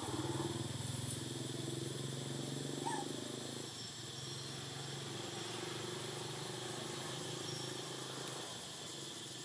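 Steady low hum of a motor engine running, a little louder for the first few seconds, with a brief faint chirp about three seconds in.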